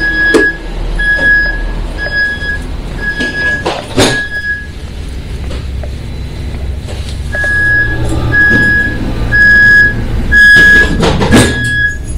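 Door warning beeps on a 2008 Stadler diesel commuter railcar: a steady high beep repeating under twice a second, in one run until about four seconds in and a second run from about seven seconds, with a loud thunk about four seconds in and another near the end as doors shut. A low diesel engine hum runs underneath, growing stronger in the second half.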